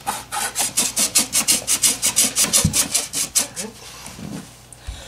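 Quick, rhythmic dry rubbing of hands on wood, about six strokes a second for some three and a half seconds, then fading. A short low thump comes about halfway through.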